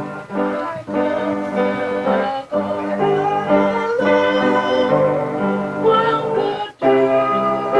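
Music with held, chord-like notes. It breaks off briefly a little under a second in, again about two and a half seconds in, and near seven seconds in.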